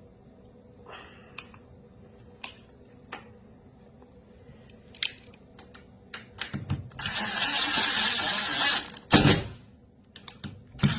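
Scattered small metal clicks and taps, then about two seconds of loud scraping and rattling, then a door banging shut on its latch, now closing against a strike plate whose tongue has been bent in to stop the rattle.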